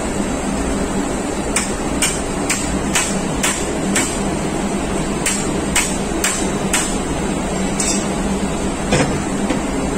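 Hammer blows on a hand-held metal tool set against the top of a MAN L21/31 diesel generator fuel pump clamped in a vise, metal on metal, about two a second: a run of six, a short pause, then four more. A steady machinery hum runs underneath.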